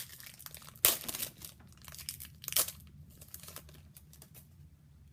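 Hockey card pack wrapper being torn open and crinkled: a sharp tear about a second in, another about halfway through, then softer crinkling that dies away.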